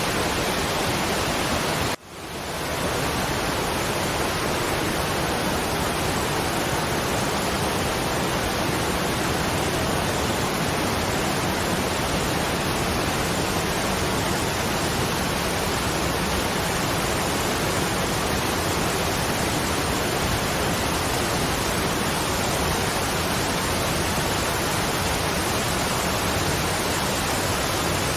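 Waterfall: steady rushing of falling water. About two seconds in it drops out for a moment and swells back.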